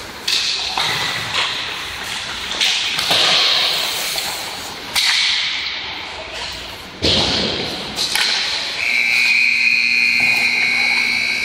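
Ice hockey play in a rink: sharp cracks and thuds of sticks, puck and boards, each ringing on in the rink's echo, over the hiss of skates. Near the end a steady high-pitched tone holds for about three seconds.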